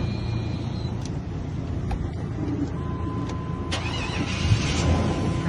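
Chevy Express van's engine running steadily, with a few sharp clicks; about halfway through a steady high chime tone comes in and holds.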